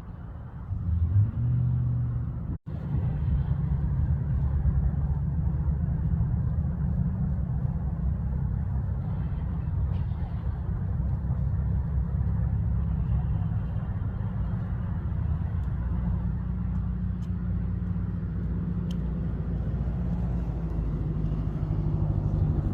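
A low, steady rumble with no clear tones, broken by a brief dropout about two and a half seconds in.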